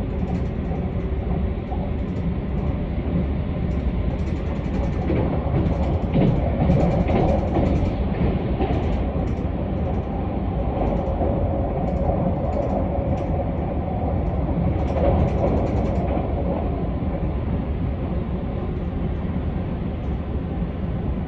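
Keisei AE-series electric train running along the line: a steady rumble with a faint held tone, swelling louder twice, about six seconds in and again near fifteen seconds.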